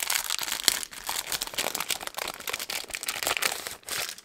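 Clear plastic packaging crinkling and crackling as a plastic sticker folio is pulled out of its wrapper. The crinkling stops just before the end.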